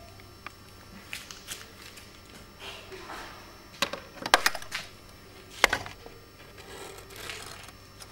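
Handling noise: a few sharp clicks and knocks, loudest in a cluster about four seconds in and a single one at about five and a half seconds, over faint rustling.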